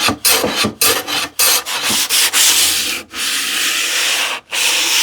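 Sandpaper rubbing along the edges of a plywood panel by hand, smoothing off splinters. It starts with quick short strokes, about three a second, then changes to slower, longer strokes of about a second each.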